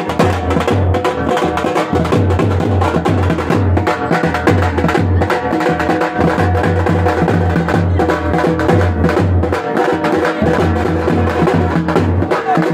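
Procession drums beaten with sticks in a fast, steady rhythm: sharp stick strokes over deep, regular low beats that go on without a break.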